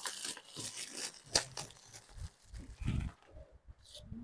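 Gift packaging being torn open and crumpled by hand: irregular rustling and tearing, with a sharp crackle about a second and a half in.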